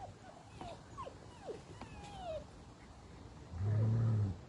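German Shepherd dog whining, with a few short high whimpers that fall in pitch. About three and a half seconds in comes a louder, low, steady moan that lasts just under a second.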